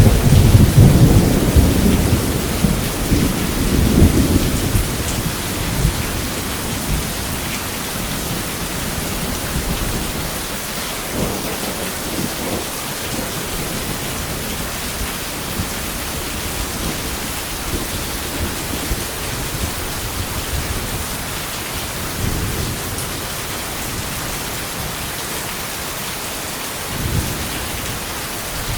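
Steady rain hissing down in a thunderstorm. A loud roll of thunder rumbles and fades over the first few seconds, and fainter rumbles of thunder come a few more times later.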